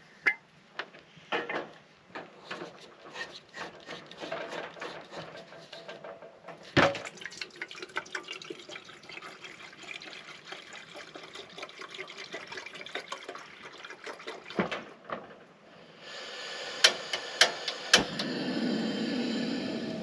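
Water poured from a plastic jug into a stainless steel kettle, splashing steadily for several seconds, with clinks and knocks of pots and kettle handled at a camp stove before it. Near the end a steady hiss with a few sharp pops: a wood campfire crackling.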